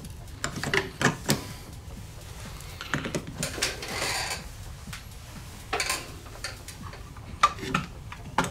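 Scattered small clicks and knocks of tools and parts being handled on a workbench, with a brief rubbing or scraping sound about three seconds in.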